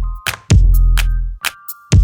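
Electronic music with a drum machine beat: deep, long bass hits about every second and a half, sharp snare and hi-hat strikes, and short synth tones.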